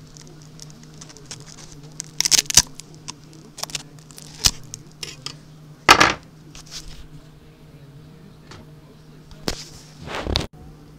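Scattered clicks, knocks and clatters from working a manual stainless sausage stuffer as it fills casings, the loudest knock about six seconds in, over a steady low hum.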